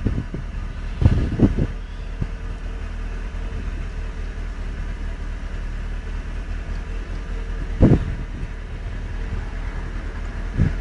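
Car engine running steadily, with a few short louder bursts about a second in and again near the end.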